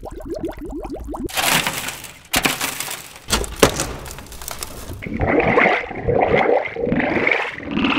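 Water sloshing and bubbling as a hand plunges into it, then crackling and sharp cracks of brittle debris breaking. From about five seconds in, warbling, shifting electronic tones from a modular synthesizer.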